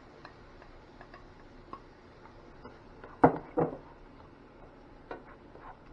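A spatula working tomato puree into a stainless steel frying pan: light ticks and scrapes against the pan, with two sharp knocks about a third of a second apart just past the middle.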